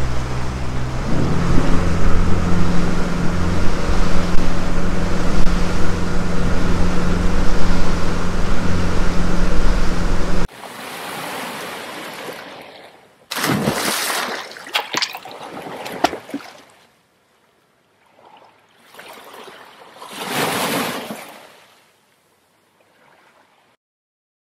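Boat engine running under way over rushing water and wind, its note stepping up about a second in as the boat motors off to break the anchor out on its buoy. After about ten seconds it cuts off abruptly, and a few short whooshing swells follow.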